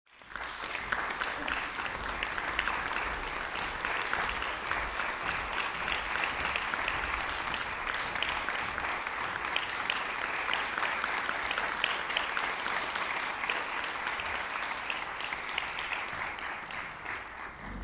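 Audience applauding, dense steady clapping that starts suddenly and dies away near the end.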